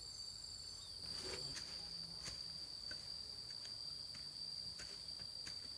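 Insects droning in one steady high-pitched note. Scattered light snaps and rustles come from people moving in dense brush, the most noticeable about a second in.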